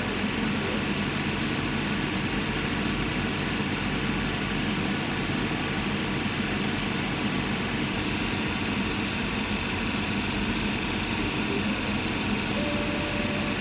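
Water-cooled laser cutter running while it cuts acrylic: a steady, noisy machine drone with a faint high whine over it.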